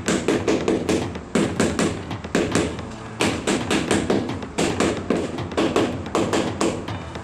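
Rubber mallet tapping a large ceramic wall tile in quick runs of sharp knocks, about five a second with short pauses between runs, bedding the tile into its adhesive.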